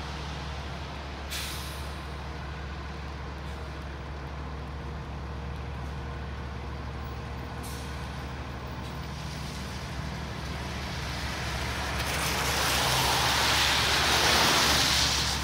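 A 2017 E-One Cyclone ladder truck's diesel engine running steadily, with two short air hisses from its air brakes. Near the end a louder hissing swell comes up with the engine as the truck pulls out over wet pavement.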